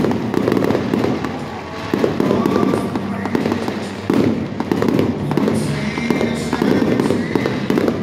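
Aerial fireworks bursting and crackling in quick succession, with music playing underneath.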